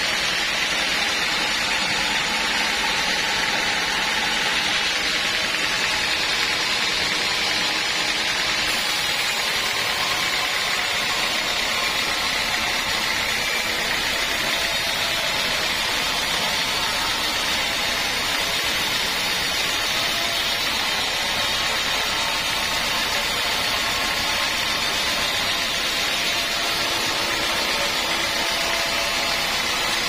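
Band sawmill running with its blade ripping lengthwise through a teak log: a steady, unbroken machine noise.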